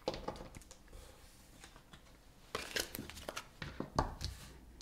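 Tarot cards being handled: faint paper rustles and light clicks of cards slid and tapped on the table, busier in the second half.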